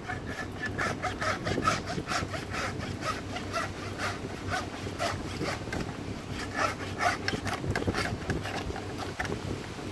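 A skinning knife cutting a cattle hide away from the carcass: quick, repeated short rasping strokes as the blade works through the layer between hide and fat.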